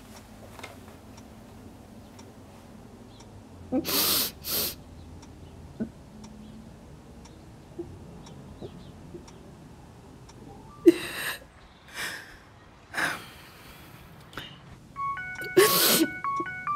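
A person's short breathy sniffs and gasps, several sharp bursts a few seconds apart, like someone crying quietly. A simple beeping electronic melody starts near the end.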